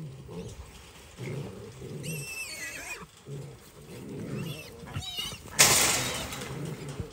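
Wild hogs grunting in low repeated pulses, with wavering high-pitched squeals about two seconds in and again around five seconds. A little later comes a loud, harsh, noisy burst that fades over about a second.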